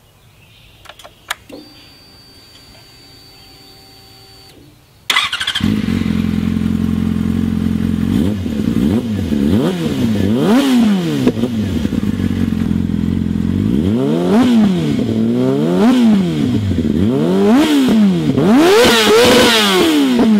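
2003 Yamaha R6 inline-four engine starting with a sudden loud catch about five seconds in after a few clicks, settling into a steady idle, then blipped repeatedly so its pitch rises and falls, the last rev the highest.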